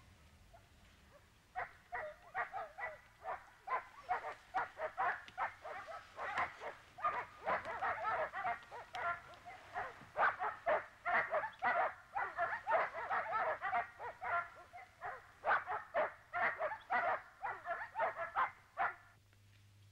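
Dog barking in quick repeated bursts, several barks a second, starting about a second and a half in and stopping just before the end.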